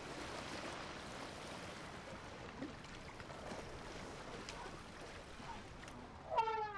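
Faint, steady outdoor ambience with a hiss of flowing water. Just before the end comes one short pitched call that rises and falls.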